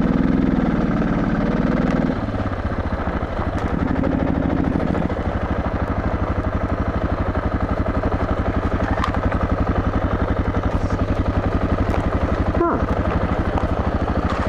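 Single-cylinder engine of a Suzuki DR650 dual-sport motorcycle running at low revs on a dirt trail, with an even, rapid pulsing beat. The note strengthens briefly for the first couple of seconds and again around four seconds in.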